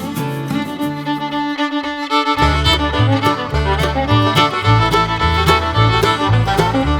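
Background music: an acoustic string tune led by fiddle over guitar, with a rhythmic bass line coming in about two and a half seconds in.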